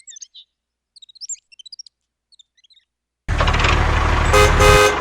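Small birds chirping in quick, high tweets, stopping just before three seconds in. After a brief gap a loud, low rumbling noise cuts in abruptly, with two short horn-like tones near the end.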